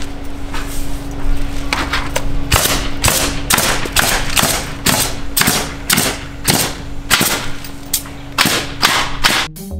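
A stapler firing staples one after another through wire stucco lath into the sheathing along the bottom of the wall: a string of sharp shots, about two a second, over a steady low hum.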